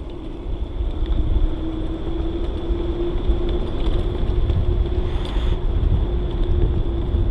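Wind buffeting the microphone and tyre rumble from a bicycle riding downhill at speed, with a steady hum over the rumble.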